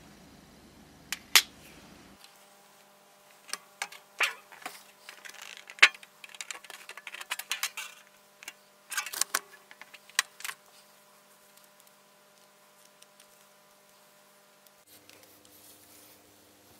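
Small metal lighter parts and hand tools clicking and tapping against a steel tray: a few sharp clicks, then a quick run of clicks in the middle, then more taps, stopping a few seconds before the end.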